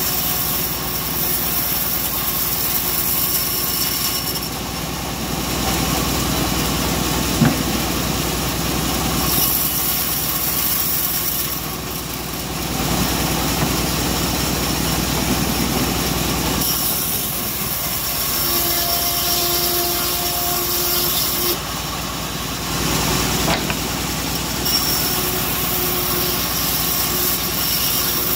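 Homemade machine band saw running steadily while its blade rips mahogany boards into battens. The hiss of the cut comes and goes as board after board is fed through.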